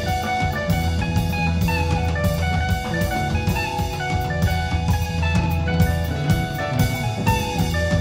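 Live rock band playing instrumentally: a drum kit keeps a steady beat with cymbals while electric guitar and keyboard play melodic lines over a heavy bass.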